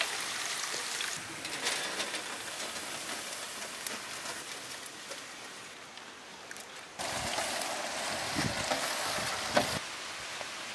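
Sliced onions deep-frying in a large pan of hot oil: a steady sizzling hiss with fine crackles. About seven seconds in the sizzle grows louder and fuller, with a few low thumps as a ladle stirs the pan.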